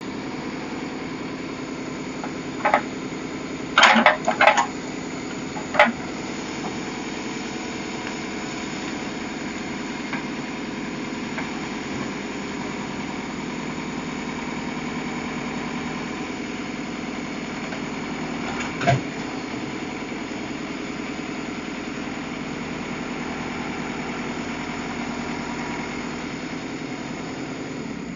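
Diesel engine of the backhoe loader and truck running steadily, with sharp knocks from the culvert loading: a few in quick succession a few seconds in and one more near the middle.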